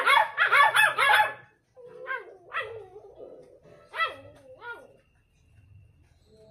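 Beagle puppies barking: a rapid string of high barks in the first second and a half, then four separate calls that slide up and down in pitch.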